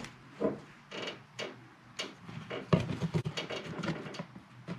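Plastic clicks and knocks of a new smoke detector being twisted off its mounting base plate, with a quick run of small ratcheting clicks in the middle.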